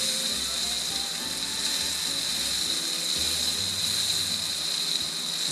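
Wagyu New York strip steak sizzling steadily on a Blackstone flat-top griddle in butter and its own juices, a constant hiss, with faint music in the background.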